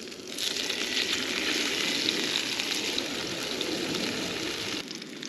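Tuna steaks sizzling and crackling in a hot pan. The sizzle jumps up sharply about half a second in, holds steady, and eases off near the end.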